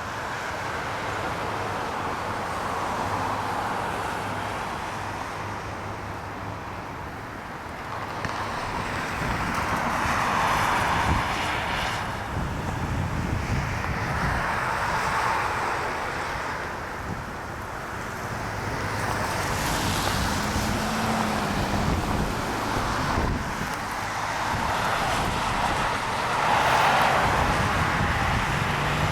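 Road traffic: vehicles passing one after another, tyre noise swelling and fading every few seconds over a low steady hum.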